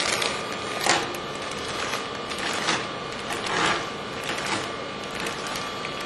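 Thin plastic lay-flat tubing crinkling and rustling as it is pushed and bunched by hand onto a stainless steel filling spout, in irregular louder bursts about once a second. A faint steady high hum runs underneath.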